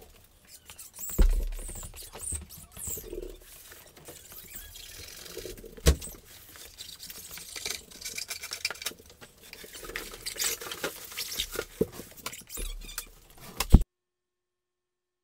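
Scattered scraping, rustling and light taps of hand tools and a laminate edge strip being handled on a laminate countertop. There are a few sharp knocks, one about a second in, a loud one near the middle and one just before the end. Then the sound drops out to dead silence: the recording's audio has failed.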